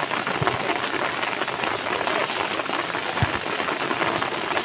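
Steady rain pattering on a waterlogged grass field, an even hiss, with two dull low thumps about half a second in and about three seconds in.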